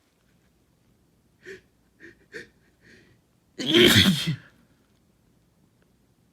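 A person sneezing: a few short, catching breaths, then one loud sneeze about three and a half seconds in.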